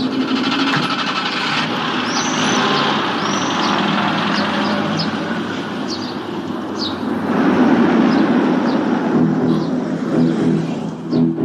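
Car engine and road noise from street traffic, swelling about seven seconds in as a car drives past. Birds chirp now and then over it.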